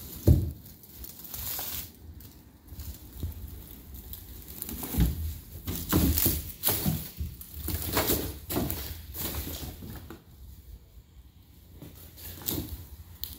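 Irregular crunching and scuffing footsteps with occasional thumps.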